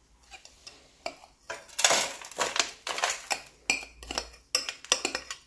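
A metal spoon scraping and tapping against a glass bowl as crushed biscuit crumbs are tipped out of it into a metal springform pan. The scraping starts about a second and a half in, followed by a run of sharp clinks a few tenths of a second apart.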